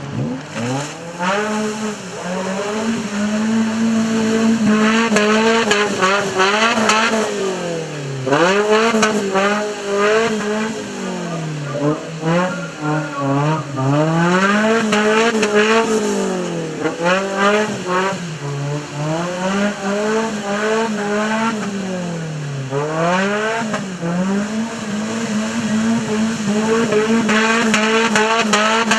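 Off-road race vehicle's engine revving hard, its pitch climbing and dropping again and again every two to three seconds as the throttle is worked.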